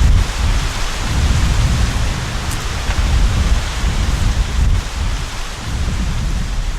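Wind gusting over the microphone as a loud, uneven low rumble, over a steady hiss of wind through the trees.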